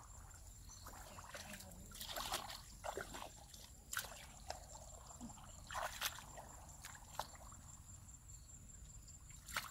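Shallow muddy water sloshing as someone wades and gropes through it by hand, with scattered small splashes and squelches of wet mud at irregular intervals.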